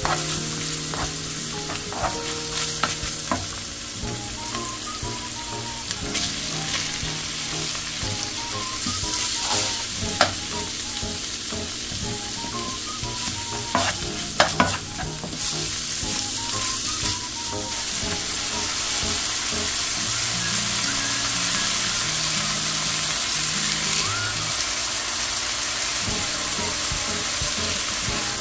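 Food sizzling and frying in a pan while being stirred, with a few sharp knocks of the utensil against the pan around the middle; the sizzle grows a little louder in the last third. Soft background music plays underneath.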